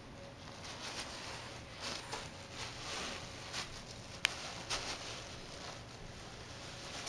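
An Australian Shepherd tearing open a present wrapped in white paper with its nose and paws: the paper rustles and crinkles in short bursts, with one sharp click about four seconds in.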